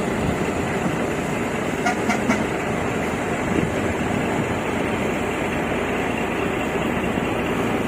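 Heavy vehicle engine running steadily.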